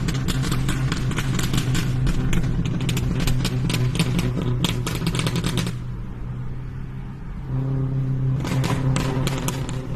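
Rapid, irregular popping and clicking over a steady low hum from a running machine. The pops stop about six seconds in and start again about a second and a half later.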